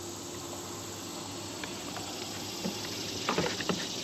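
Water splashing and dripping near the end as a catfish jug line is hauled in beside a canoe, over a steady soft hiss.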